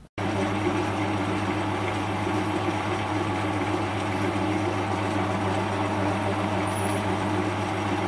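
Metal lathe running with a twist drill in the tailstock chuck boring out the centre of a brass fitting: a steady motor hum with cutting noise over it.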